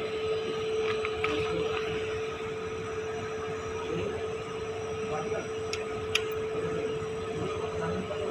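Compressed air flowing through a sampling hose and glass tube flowmeter, heard as a steady hum over a hiss. Two short clicks come about six seconds in.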